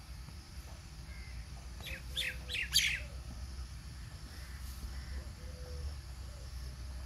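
A small bird chirping in a quick burst of about five sharp, high calls two to three seconds in, with a few fainter calls before and after over a steady low rumble.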